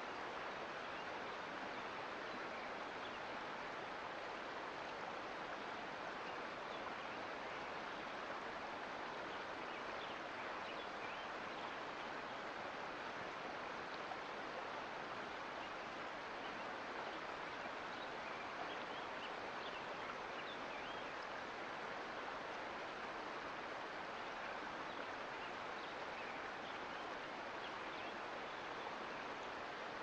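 Mountain creek flowing over rocks: a steady, even rush of running water with faint scattered small splashes.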